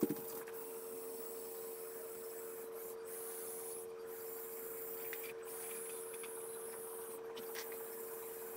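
Small electric motors of a Lego Technic Liebherr 9800 excavator model running: a faint steady whine with a high hiss over it that cuts out briefly several times as the drives stop and start.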